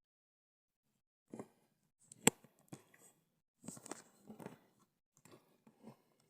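Intermittent rustling and clicking from a tripod being tied up and handled by hand, with one sharp click a little over two seconds in.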